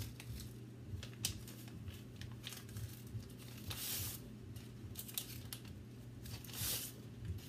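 A plastic packet of dried rice paper wrappers crinkling while the stiff sheets are pulled out one at a time, with light crackles and two louder crisp rustles, about four seconds in and near the end.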